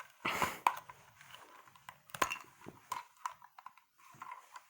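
Irregular clicks and knocks of hard plastic as a LEGO vehicle model is handled and turned, with a louder clatter about a third of a second in and another sharp knock about two seconds in.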